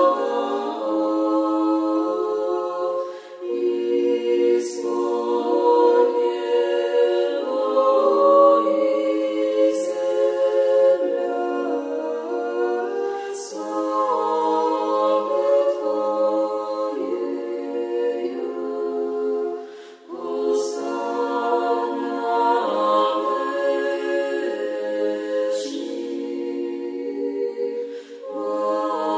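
A choir singing unaccompanied, in long held chords. The phrases have short breaks between them.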